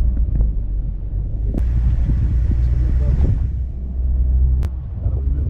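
Car driving over a rough unpaved track: a steady low rumble of engine and road. A hiss of tyre and gravel noise joins from about a second and a half to three and a half seconds in, and there are two sharp knocks, one about a second and a half in and one near the end.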